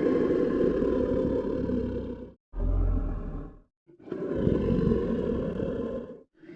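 Designed creature roars for the dinosaur Zalmoxes: three long, low roars, the first and last about two seconds each and a shorter one between, with brief silent gaps.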